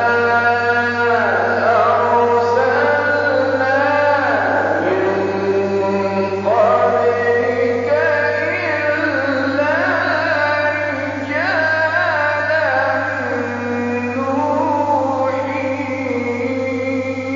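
A man's voice chanting Quran recitation in the melodic tajweed style, with long held notes that bend and ornament up and down, over a steady low hum.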